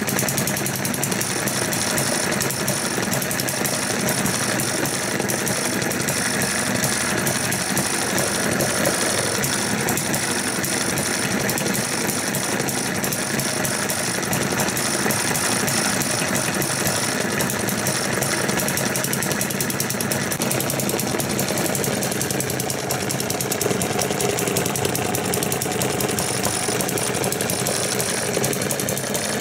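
Eachine ET1 miniature hit-and-miss gas engine running steadily, a fast, even run of knocks with no pauses, fuelled on unleaded petrol with a little two-stroke oil, on which it runs at its best.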